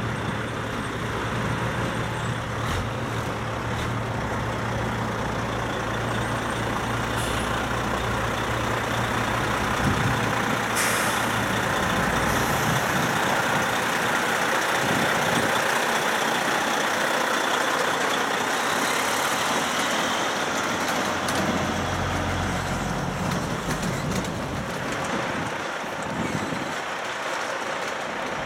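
Kenworth cab-over truck's diesel engine running as the rig drives slowly past, hauling a double trailer, with a short air-brake hiss about eleven seconds in.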